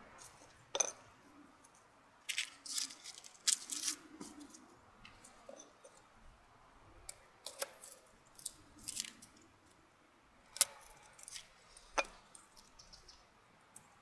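Garlic cloves being peeled and cut with a knife on a wooden chopping board: dry papery skin crackling and rustling in short scattered bursts, with a few sharp knocks of the blade on the board, about a second in and twice near the end.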